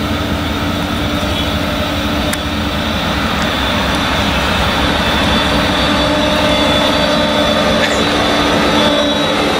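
Claas Jaguar 970 forage harvester's MAN V8 engine running with a steady high whine, growing gradually louder as the machine drives up and passes close by.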